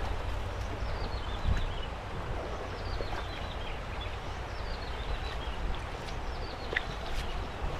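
A bird repeatedly sings a short phrase of quick notes falling in pitch, about once every two seconds, over a steady low rush of river water and wind. There is a brief low bump about a second and a half in.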